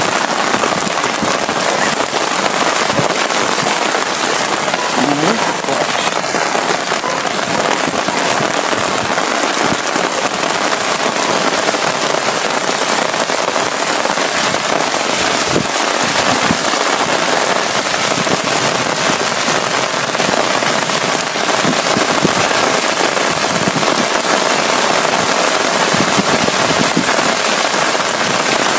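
Heavy rain pouring onto a flooded street, a loud steady hiss of falling water.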